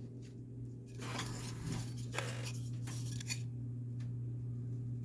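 Layered armor pieces being handled, with a few short rustles, scrapes and clicks over a steady low hum.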